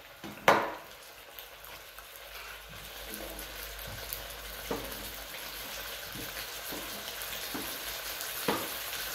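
Food frying and sizzling in pans on a stove, the hiss growing steadily louder. A sharp knock about half a second in, and a few lighter knocks later.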